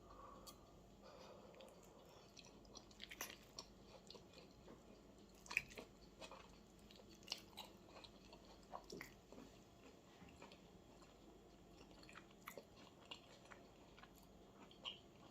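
Faint chewing and eating sounds, with scattered light irregular clicks and taps.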